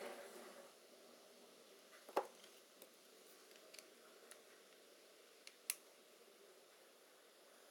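Near silence, broken by a few small clicks and knocks of a disassembled metal camera lens (a Helios 44M-6) being picked up and handled. A sharper click comes about two seconds in and another just before six seconds.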